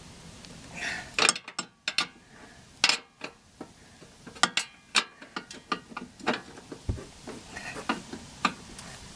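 Irregular metallic clicks and clinks from an 18 mm ring spanner working the nut on a front suspension control-arm bolt as it is tightened.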